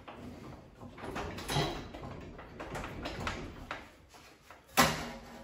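Irregular metal clanks and scraping from hands-on work in a car's engine bay, as a Subaru EJ25 engine hanging on hoist chains is worked loose. One sharp clank near the end is the loudest and leaves a brief low ring.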